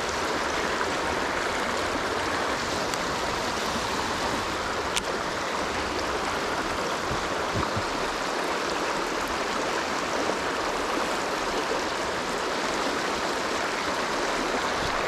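Shallow river water rushing steadily over a rocky shoal, an even hiss of running water, with a single faint click about five seconds in.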